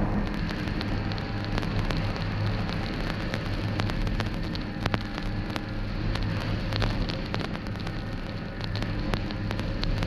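Snowmobile engine running steadily while under way, with frequent clicks and rattles over it.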